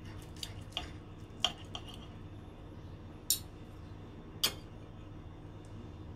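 Utensils clinking against dishes: about half a dozen short, sharp clinks, the two loudest about three and four and a half seconds in, over a steady low hum.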